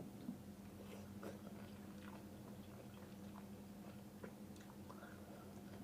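Faint chewing and small wet mouth clicks of a person eating noodles, over a steady low hum.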